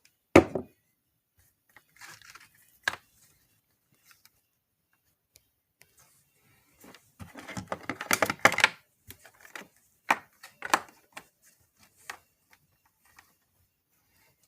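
Small objects and plastic being handled close to the microphone: a sharp knock near the start, scattered clicks, then a burst of rapid clicking and rustling in the middle, followed by a few shorter bursts.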